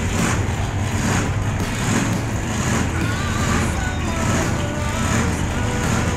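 Diesel puller's engine running hard and steady down the track during a pull, heard from the grandstand.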